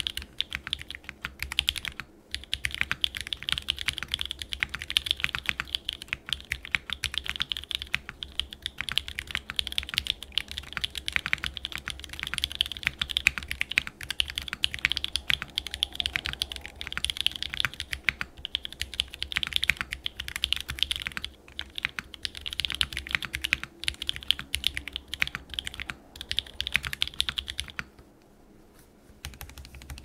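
Fast, continuous typing on an Axiom Studios Typ60 mechanical keyboard: Jwick black nylon switches on a carbon fiber plate in an O-ring mount, with Cherry clip-in stabilizers and GMK keycaps. The typing stops for a second or so near the end.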